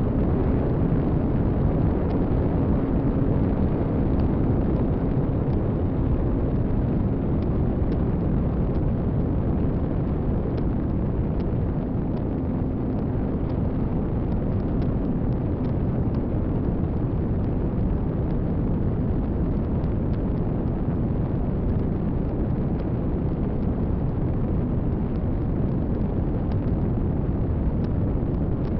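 Steady wind rush over the onboard camera's microphone of an RC glider in flight.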